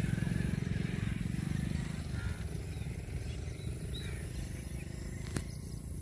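Outdoor ambience: a steady low rumble with faint, scattered high chirps, and one sharp click about five seconds in.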